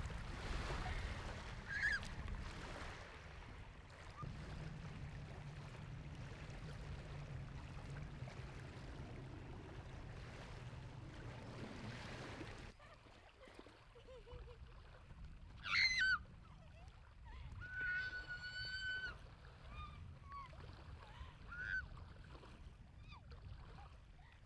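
Small waves washing over a pebble shore, a steady rush that stops suddenly partway through. After it, quieter open air with a few short high calls, one holding a steady note for about a second.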